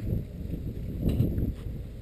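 Irregular low thumps and rumbling as puppies nose and bump the wire enclosure around the camera, loudest about a second in.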